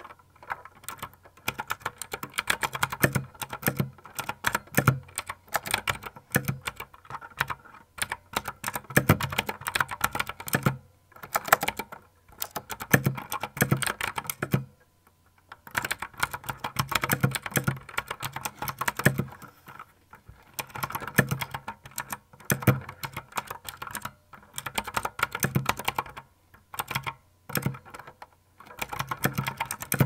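Fast typing on a mechanical keyboard with Gateron Blue clicky switches: rapid runs of sharp key clicks lasting a few seconds each, broken by several brief pauses.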